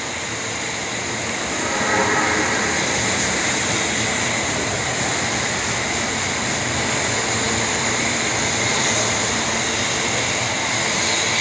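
Osaka Metro Tanimachi Line subway train running, a steady rumble and hiss that grows louder about two seconds in and then holds.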